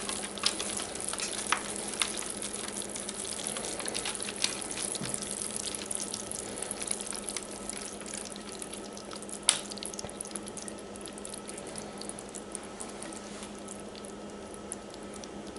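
Hot toffee syrup of maple syrup, cream and sugar, just cooked to the hard-ball stage, pouring from a saucepan into a paper-lined foil pan. It makes a steady frying-like crackle of bursting bubbles with scattered small clicks, one louder click about nine and a half seconds in, and slowly fades, over a faint steady hum.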